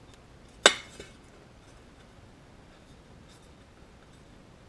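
Sheet-aluminium flap part set down on a wooden workbench: one sharp metallic clack with a short ring, and a lighter knock just after. Later comes the faint scratch of a marker writing on the metal.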